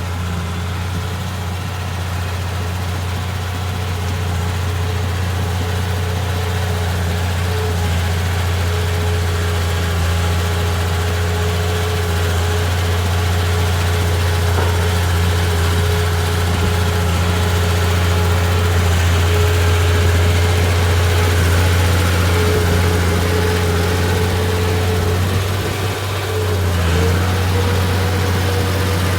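Bulldozer's diesel engine running steadily at a low, even idle with a constant hum, dipping briefly about 26 seconds in.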